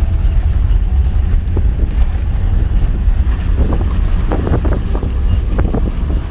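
Vehicle driving along a rough rural road, a steady low rumble with wind buffeting the microphone. A few short, sharper sounds come in the second half.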